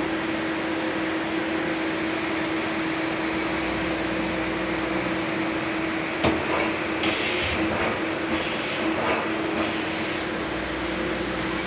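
CNC machine running while cutting a stub Acme thread: a steady hum with a held tone. About six seconds in there is a sharp click, then several short bursts of hiss.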